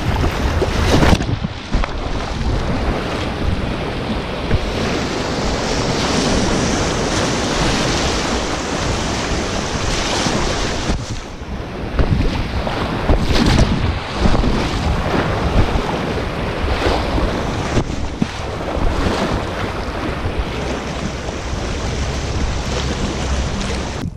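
Fast mountain-river rapids rushing and splashing close around a canoe, with wind rumbling on the microphone. The rush swells and eases in strength.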